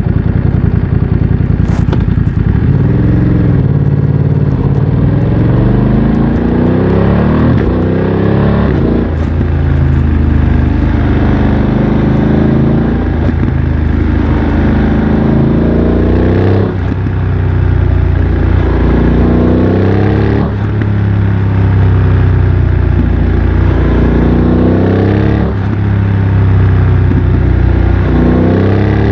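BMW F900 XR's parallel-twin engine through a MIVV X-M1 aftermarket exhaust, pulling away and accelerating: the pitch rises with the revs, then drops sharply at each of several upshifts before climbing again.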